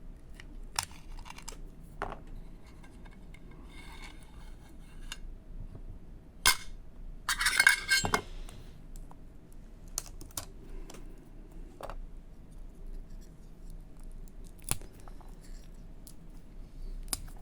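A portable drive's casing being opened by hand: scattered sharp clicks and knocks, with a louder burst of rattling and scraping about seven to eight seconds in as the case comes apart.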